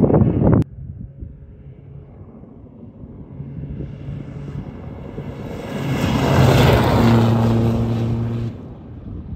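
A rally car approaching at speed on a gravel stage and passing close by. Its engine builds from a distant drone to loudest, held at a steady high note, then cuts off suddenly. In the first half second a loud rush of noise stops abruptly.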